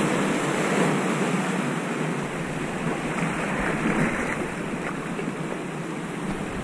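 Ocean surf washing and foaming among intertidal rocks, a steady rush of water.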